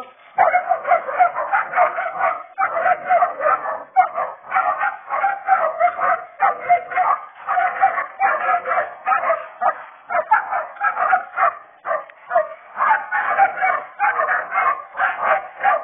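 Young cur puppies barking and yapping without a break, several short high-pitched barks a second.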